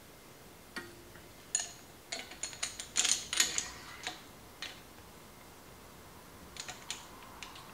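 Light clicks and taps of small handlebar parts and a hand tool being worked at the end of a motorcycle handlebar, with a quick run of clicks about two to three and a half seconds in and a few more near the end.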